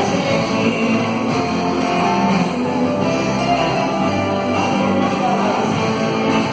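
Band music led by guitar, with strummed guitar chords over a steady bass line.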